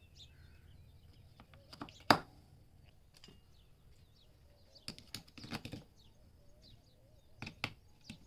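18650 lithium-ion cells being pressed one by one into a plastic three-cell battery holder against its spring contacts: a sharp click about two seconds in, a cluster of clicks and rattles a little past the middle, and two more clicks near the end. Faint bird chirps in the background.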